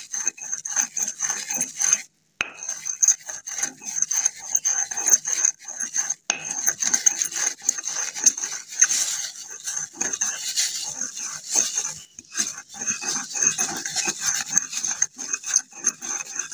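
Pestle grinding and scraping round a mortar (kharal), in quick, irregular strokes through a powder of mercury, sulphur and ammonium chloride being worked into a kajli.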